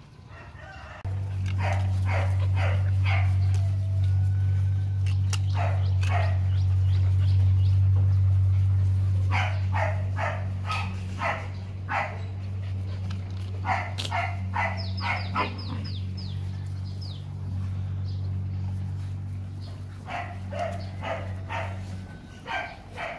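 Rottweiler puppies barking and yipping in quick bursts of three to five yaps at a time, several times over. A steady low hum runs underneath from about a second in until near the end.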